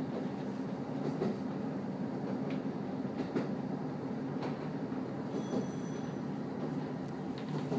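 KiHa 54 diesel railcar running along the line, heard from inside the cabin: the steady low drone of its diesel engine and running gear, with a few faint irregular clicks from the wheels on the track.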